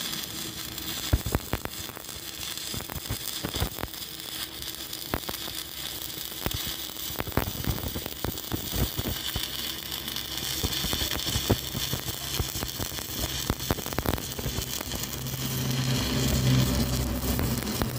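Stick (arc) welding on steel bar: the arc hisses steadily with frequent sharp crackles and pops. A low steady hum joins in near the end.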